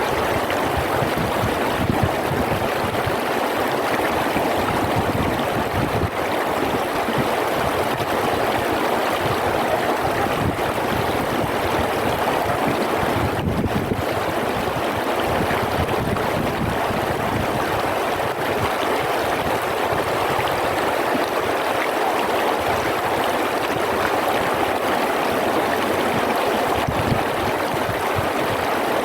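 River water flowing, a steady, unbroken rush.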